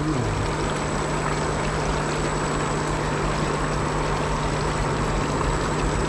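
Steady bubbling and splashing of an aerated fish tank, over the steady hum of the air-pump motors that pump oxygen into the water.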